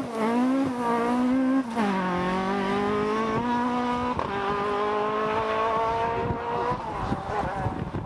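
Ford Escort Mk2 rally car's engine at full throttle as it drives away. The pitch drops at upshifts about two and four seconds in and climbs between them, and the engine fades with distance near the end.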